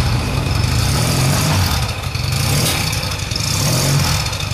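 Yamaha 650 air-cooled parallel-twin motorcycle engine idling, with small shifts in revs and a slight rise in engine speed about four seconds in.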